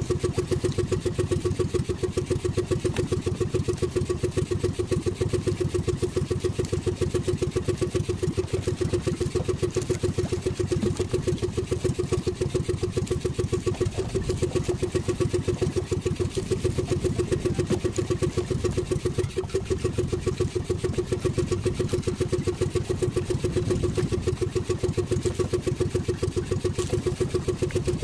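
Small outrigger fishing boat's engine running steadily with an even, rapid pulse.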